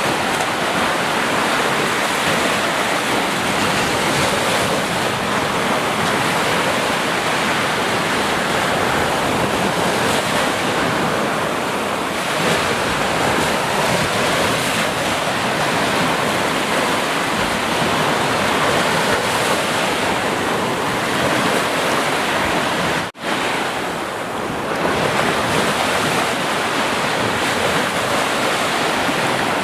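Ocean surf: a continuous wash of sea waves, steady throughout, with a momentary sharp dropout about 23 seconds in.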